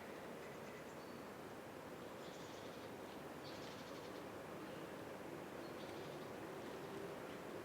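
Small birds giving a few brief high calls, some as quick trills, over a steady faint hiss of outdoor ambience.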